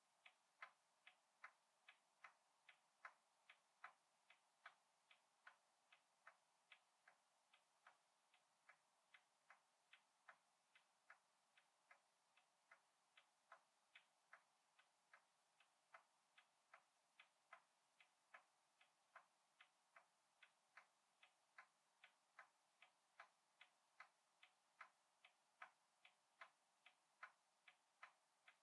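Faint, evenly spaced ticking, about two to three ticks a second, keeping a steady, unchanging rhythm.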